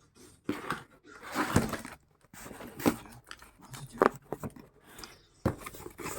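Product packaging being handled and opened: irregular rustling, scraping and tearing noises from cardboard and wrapping.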